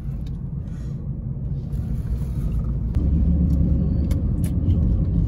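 Steady low rumble of a car's engine and tyres, heard from inside the cabin while driving; it grows louder about three seconds in.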